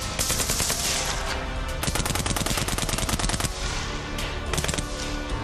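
Maxim-type machine gun firing long bursts of rapid automatic fire, the shots coming in quick even succession with a few short breaks in the second half. Background music runs underneath.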